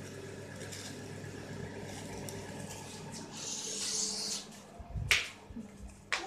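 Handling noise from a phone being moved around by hand: a burst of rustling about three and a half seconds in, then a sharp click about five seconds in and another near the end, over a steady low hum.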